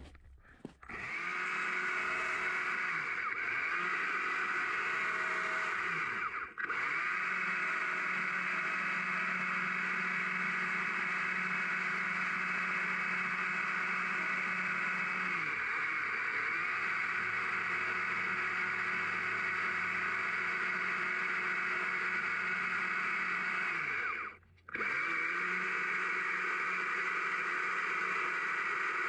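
Stihl MSA 200 C battery chainsaw running at full speed, with a steady electric whine, as it carves a small log. It starts about a second in. The trigger is let off twice, briefly about six seconds in and for longer near the end, and the motor winds down and back up.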